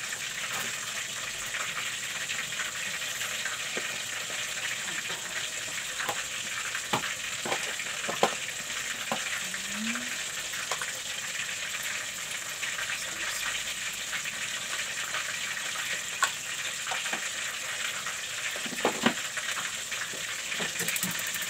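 Steady cooking hiss from a stainless steel pot steaming a bowl of chicken juice on a gas stove, with a few sharp light clicks now and then.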